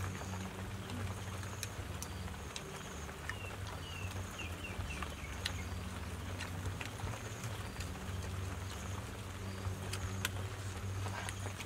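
Outdoor ambience: a steady low hum, short high chirps repeating about once a second, and a quick run of short descending chirps about four seconds in. Scattered light clicks run through it.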